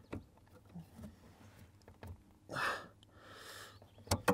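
A man exhales hard, then breathes in, as he strains at the clutch pedal's assist spring with needle-nose pliers. There are faint clicks from the pliers on the spring assembly, and two sharp metallic clicks near the end.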